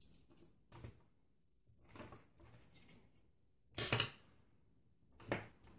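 Handling noises of a graphics card's metal heatsink and its plastic fans and cable clips on a wooden desk: scattered small clicks and rattles, with a louder clatter about four seconds in and another sharp knock near the end.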